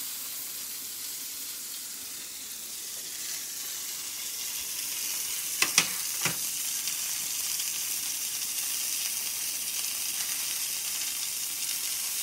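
Hanger steak sizzling in a cast-iron skillet, a steady hiss of searing, with three sharp clicks a little over halfway through.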